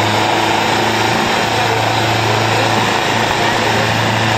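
Diesel tractor engines running hard and steady, as in a tractor tug-of-war pull, with a constant low drone under a wash of engine noise.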